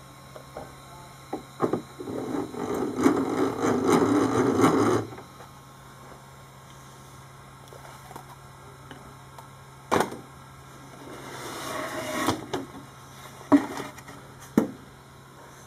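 Clunks, rattles and scraping from a CarveWright carving machine being opened and its carved board handled, over a steady low hum. A dense rattling stretch lasts a few seconds near the start, followed later by single sharp knocks and a softer scraping.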